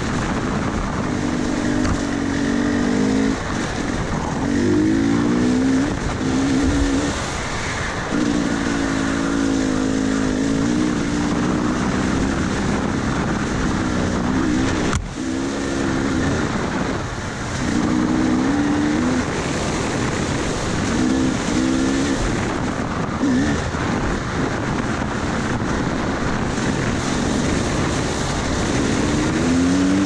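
KTM 300 two-stroke dirt bike engine under way, its pitch rising and dropping again and again as the throttle is opened and rolled off, over steady wind and trail noise. A single sharp knock about halfway through.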